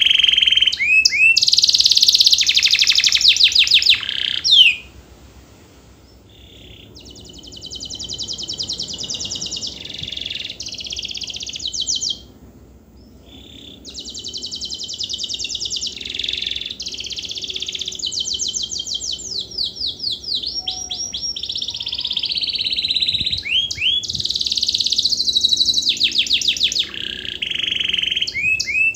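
Domestic canary singing a long song of rapid trills and rolling, sweeping high phrases, one tour following another. The song breaks off briefly twice, about five and twelve seconds in.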